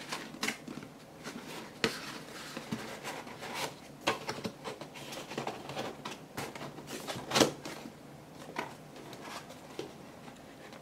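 Paperboard panels of a paper-craft vending machine kit being handled, folded shut and pressed into place by hand: scattered soft clicks, taps and scrapes of card, with the loudest knock about seven seconds in.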